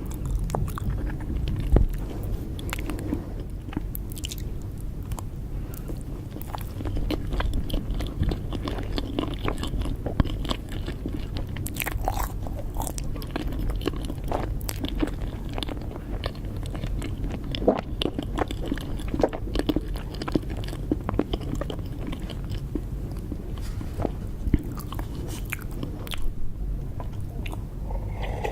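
Close-miked mouth sounds of a person eating cake: repeated bites and wet chewing with small smacks and occasional crunches.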